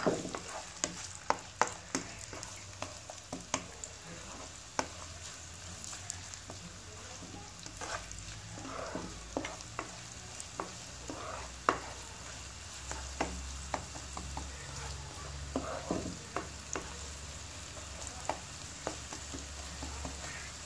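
Chopped onions frying in oil in a non-stick wok, sizzling steadily while a plastic spatula stirs them, with irregular sharp taps and scrapes of the spatula against the pan.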